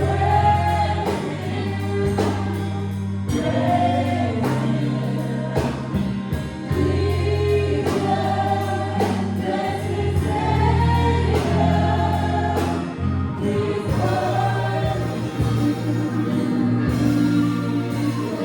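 Gospel choir singing with a live band: sustained bass notes underneath and regular drum hits.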